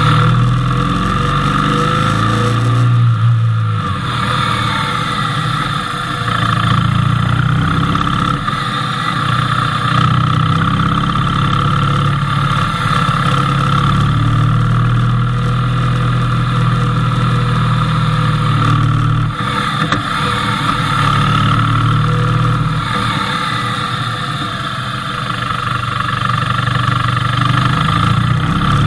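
Motorcycle engine running under way on a winding climb, its note rising and falling with the throttle and dipping briefly twice, about three seconds in and again near twenty seconds. Heard through a camera mounted on the bike, with road and wind noise under it.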